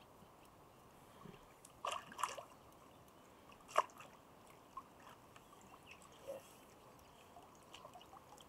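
Faint water splashes and sloshing as a hooked mirror carp thrashes at the surface and is drawn into a landing net. There are a few sharp splashes about two and four seconds in.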